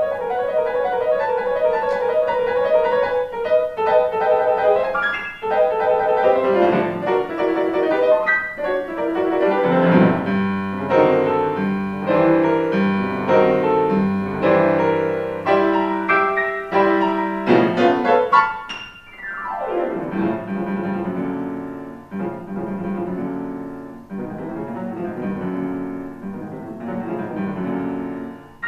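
Solo acoustic piano playing a fast classical piece, with a quick downward sweep across the keys about two-thirds of the way through.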